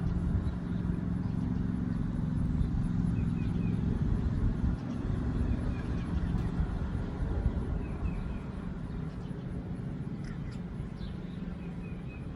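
Steady low rumble of a running vehicle engine, easing off about two-thirds of the way through, with a few faint bird chirps.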